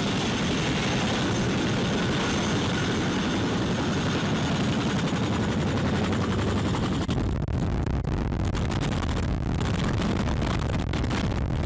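CH-47 Chinook tandem-rotor helicopter hovering close overhead: a steady, loud mix of rotor and turbine noise, heavy in the low rumble, with a hiss of rotor wash.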